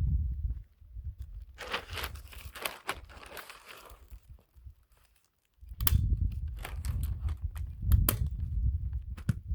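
Synthetic roofing underlayment crinkling and rustling as it is handled, with sharp clicks mixed in. Briefly cut off about halfway through, then a low rumble with a few sharp knocks.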